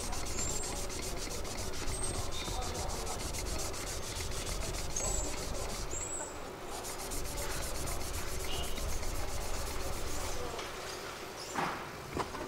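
A rusty yanagiba knife blade being ground back and forth under finger pressure on a coarse wet whetstone, a steady gritty scraping. There are a couple of short knocks near the end.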